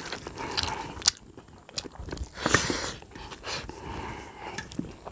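Close-up eating sounds: chewing and mouth noises of rice and jackfruit curry eaten by hand, with fingers mixing rice on a steel plate. The noises come irregularly, with a sharp click about a second in.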